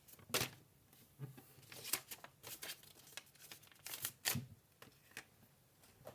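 A sheet of A4 paper being handled and folded into a paper airplane: scattered crackles and rustles of the paper being creased, with the sharpest ones about half a second in and around four seconds in.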